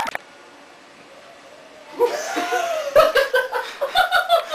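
Low room tone for about two seconds, then laughter breaks out and carries on in short, choppy bursts.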